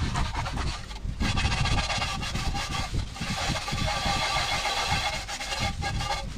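Rusty metal scale pan being scrubbed with a scouring pad in a basin of water: repeated wet scraping strokes. From about a second in until near the end, a steady hum made of several pitched tones, like a running engine, sounds along with it.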